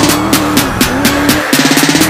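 Music with a steady driving beat and a stepped melody line. About one and a half seconds in, the bass drops out and the beat breaks into a fast stutter.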